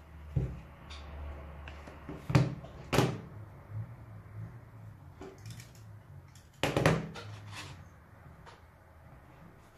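Hands handling a leather wallet and a tin of leather cream on a cutting mat: a few sharp knocks and clatters, two close together a little after two seconds in and the loudest near seven seconds, with soft handling and rubbing between them.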